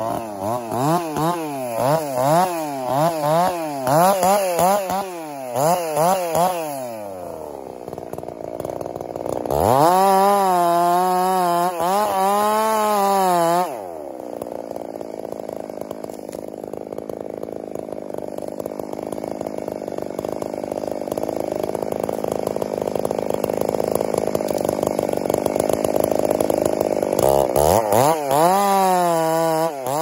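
Two-stroke chainsaw running, its engine revved up and down over and over, then settling to a lower, steady run through the middle. Near the end it revs hard again as the bar goes into the back cut of a large tree being felled.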